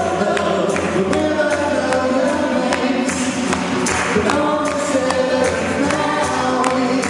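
Live band performing a song, several voices singing together over a steady percussive beat.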